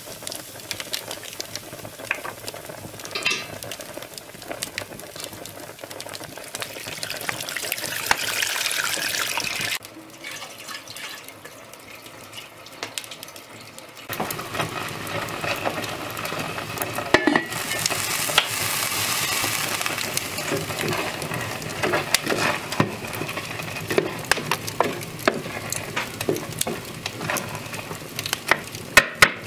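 Hearth wood fire crackling under cast-iron and copper cooking pots, with a steady sizzling hiss as water goes into the hot pot and small metallic clinks of pot and handle. The hiss drops away abruptly about ten seconds in and comes back a few seconds later; near the end a quick run of sharp clinks sounds as a pot is hung on its hook.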